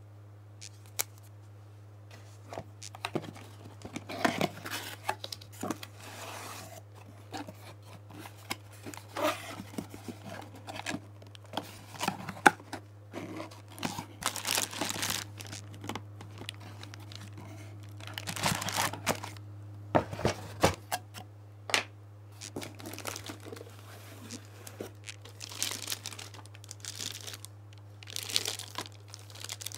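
Plastic bags and wrapping crinkling and cardboard rustling as items are handled and lifted out of a box, in irregular bursts with a few sharp knocks. A steady low hum runs underneath.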